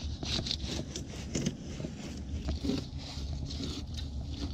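Fillet knife cutting along a rockfish on a board, a string of short scrapes as the blade works through the flesh and along the bones.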